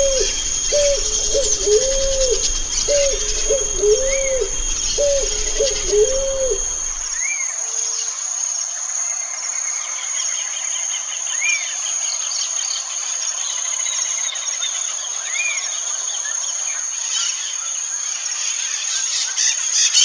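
A dove cooing a run of soft, rounded notes in short groups, stopping about seven seconds in. Behind it, insects keep up a steady high-pitched trill, and a small bird gives a faint chirp every few seconds.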